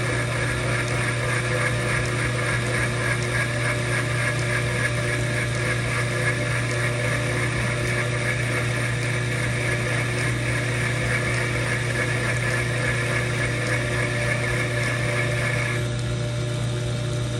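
Old metal lathe running steadily, its motor and gear train giving a constant low hum with steady higher tones. A higher-pitched part of the sound cuts off about sixteen seconds in.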